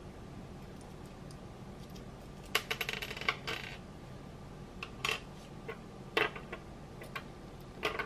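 Small plastic LEGO Technic parts clicking and clattering on a hard tabletop as they are handled, set down and pushed together. There is a quick cluster of clicks about two and a half seconds in, then a few separate single clicks.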